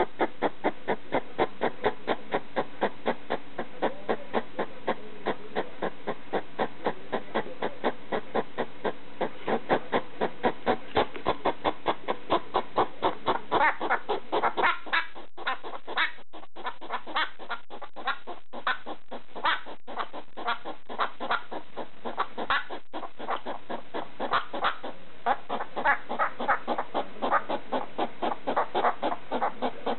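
Pet hedgehog making rapid, repeated short barking calls, about three a second. About halfway through they thin out to scattered calls, then pick up again near the end.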